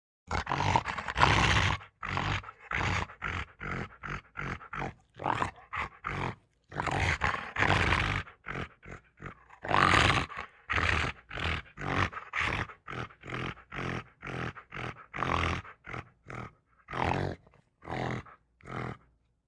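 A rapid string of short, animal-like vocal calls, about two or three a second with brief gaps between, some longer and louder than others.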